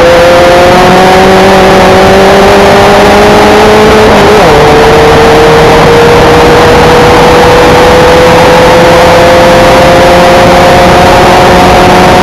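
Formula 1600 race car engine at full throttle, its pitch climbing slowly as it pulls through the gear, with a quick upshift about four seconds in before it climbs steadily again. Very loud, with a heavy rushing noise under the engine note.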